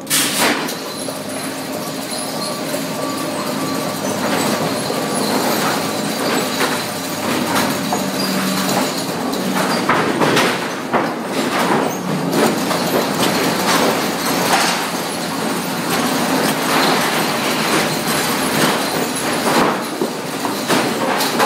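Sawmill machinery running steadily, with frequent irregular knocks and clatter over a constant mechanical noise and a faint hum.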